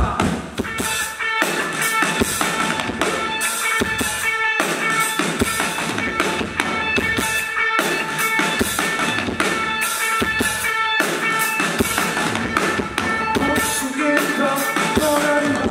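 Live rock band playing an instrumental passage on drum kit, electric guitars and electric bass, with steady drum hits driving the beat. It is a poor-quality recording made from the audience.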